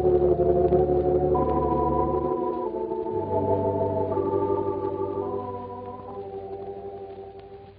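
Organ music: sustained full chords over deep pedal bass notes, the top line stepping between held notes. The sound grows quieter through the second half and dies away near the end as a phrase closes.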